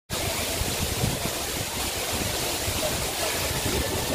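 Steady rush of flowing water, with wind rumbling on the microphone.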